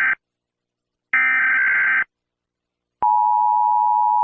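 Emergency Alert System alert tones. The end of one SAME header data burst is followed by a second burst about a second long, and about three seconds in the steady two-tone EAS attention signal begins.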